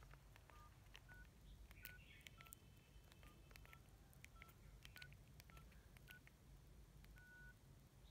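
Faint keypad beeps from a Nokia 6230i as a service code is keyed in: about ten short beeps at slightly different pitches, roughly two a second, each with a light click of the plastic keys. A longer beep sounds near the end as the code opens the phone's warranty screen.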